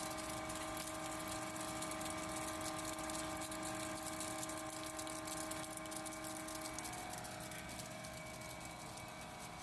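A 5-ton-per-day flake ice machine running, giving a steady hum with several constant tones. Over it is a dense fine crackle of ice flakes coming out of the ice outlet as the machine makes ice.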